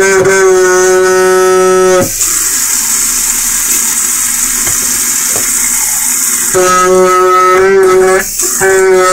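Two-handle kitchen sink faucet humming loudly as water runs: one steady held tone with overtones, sung by the faucet's valve as a handle is opened. About two seconds in the hum cuts off and only the hiss of running water is left; the hum comes back near the end, breaking off once briefly.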